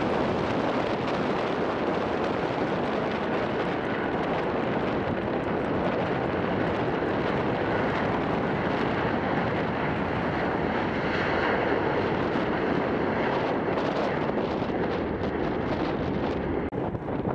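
Airbus A330 jet engines at takeoff thrust, a steady rushing noise mixed with strong wind buffeting the microphone. A faint high whine shows through about eleven seconds in.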